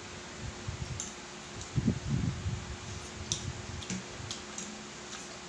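Metal utensil clicking and scraping against a plate while scooping food, a series of sharp light clicks, with a cluster of low dull bumps about two seconds in. A faint steady hum runs underneath.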